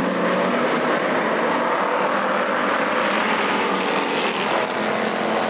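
A pack of pure stock dirt-track race cars running hard together, their engines blending into one loud, steady drone.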